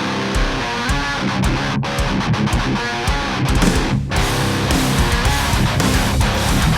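Music with strummed, distorted electric guitar over a steady heavy rock beat.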